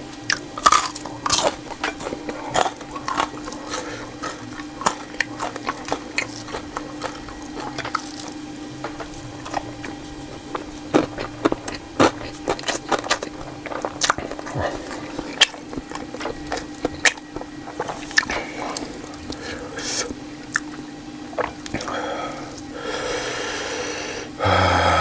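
Close-miked eating of spicy meatball stir-fry: wet chewing and mouth sounds with many short sharp clicks, over a steady low hum.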